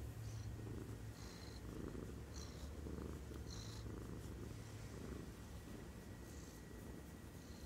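Domestic cat purring close to the microphone while being scratched around the head and chin: a steady low rumble that swells and eases about once a second with its breathing.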